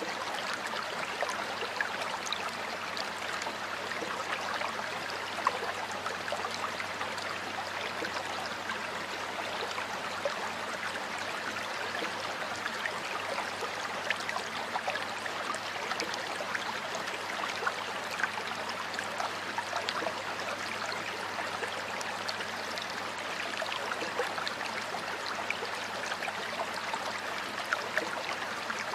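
Stream water flowing steadily over rocks, a continuous rushing with many small splashes and gurgles.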